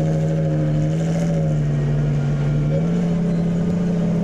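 Supercar V12 engines idling at walking pace, a steady low drone. Its pitch dips slightly, then steps up a little about three seconds in.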